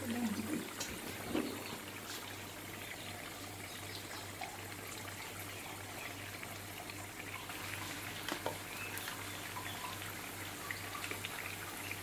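Battered potato-slice pakoras deep-frying in hot oil in a frying pan: a steady sizzle with scattered fine crackles.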